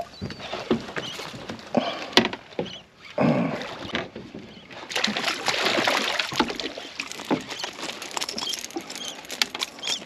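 Water splashing and irregular knocks and clatter as a hooked fish is netted at the side of a small boat. The splashing is heaviest in the second half.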